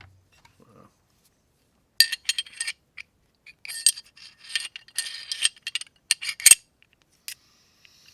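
Sharp metallic clicks, clinks and scrapes of a Glock 29 SF pistol's parts being handled, in quick clusters over about five seconds, loudest near the start and near the end.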